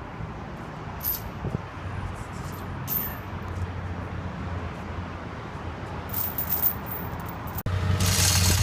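A vehicle engine idling with a steady low hum, with a few faint knocks. About a second before the end the sound cuts off abruptly and a louder engine hum follows.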